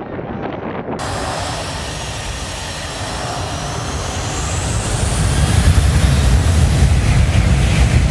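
Twin-jet airliner's engines spooling up for takeoff: a whine climbs in pitch, and from about halfway through a loud low jet rumble builds up along with the rush of wind.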